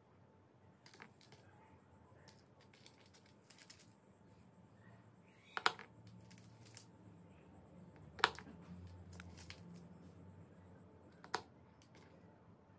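Metal scissors snipping the heads off wooden matchsticks: three sharp snaps, spaced a few seconds apart, with small clicks and taps of the scissors and sticks on the table in between.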